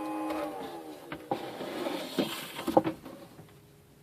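Small cooling fan in a Netgear ProSafe 24-port gigabit switch whining with several steady tones, then winding down in pitch about half a second in. Its noise is taken for a bad fan. Clicks and knocks of handling follow.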